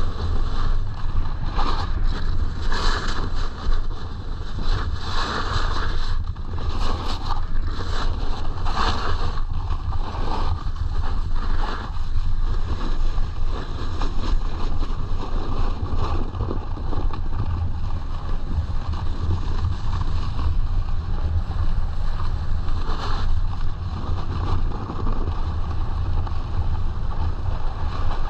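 Wind buffeting the microphone of a snowboarder's action camera while riding downhill, with the board's edge hissing and scraping over packed snow in irregular surges as it turns.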